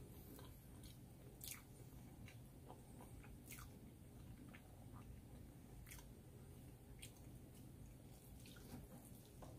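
Faint close-up eating sounds: a man slurping and chewing spicy noodles, with scattered soft mouth clicks and smacks over a low steady hum.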